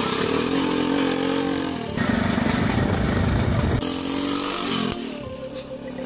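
Small step-through motorbike engine running as it is ridden, its pitch rising and falling with the throttle. It changes abruptly about two seconds in to a rougher, noisier stretch, then returns to a steadier engine note near four seconds.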